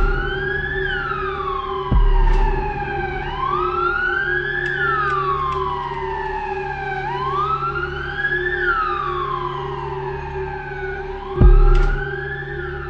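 Emergency vehicle siren wailing in slow cycles, each rising quickly and falling away over a few seconds, over a low engine rumble. A sharp click with a short low thud cuts in twice, about two seconds in and near the end.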